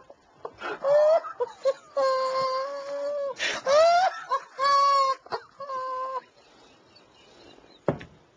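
A man's stifled, uncontrollable laughter behind his hand: long high-pitched squealing whimpers, each held for about a second, broken by sharp gasps for breath. It fades to quiet breathing near the end.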